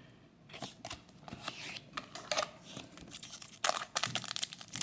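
Foil booster-pack wrapper crinkling and tearing as it is handled, a string of irregular crackles that grows louder near the end.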